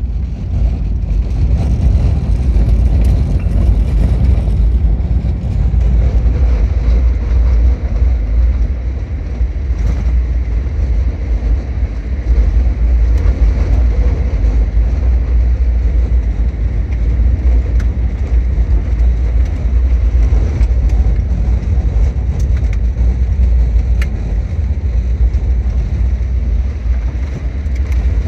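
SUV driving over a dirt track, heard from inside the cabin: a steady deep rumble of engine and tyres, with a few faint clicks here and there.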